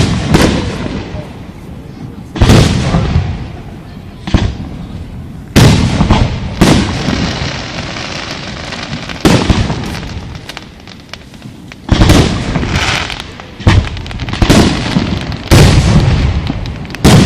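Aerial fireworks shells bursting: about ten loud booms a second or two apart, each trailing off in a long fading rumble.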